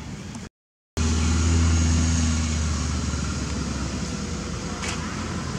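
A motor vehicle's engine running steadily, a low hum that starts abruptly after a brief gap of silence about half a second in and eases slightly over the following seconds.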